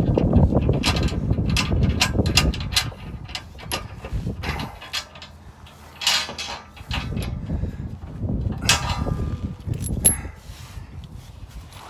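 Scattered metallic clicks and knocks from hands and tools working at a steel skid plate under a Jeep, with a low rumble through the first couple of seconds.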